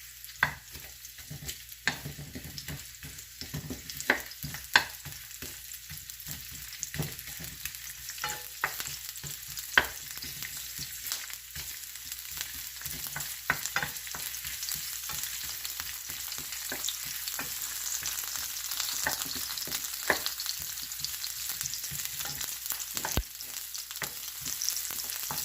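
Sliced onions sizzling in hot oil in a frying pan, the sizzle growing louder as they fry toward golden brown. A utensil stirring the onions clicks and scrapes against the pan again and again.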